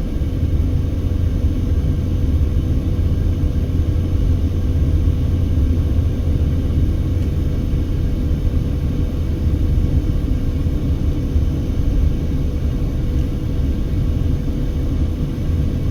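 Steady low rumble of a car's engine and tyres heard from inside the cabin while driving, with a faint steady whine above it.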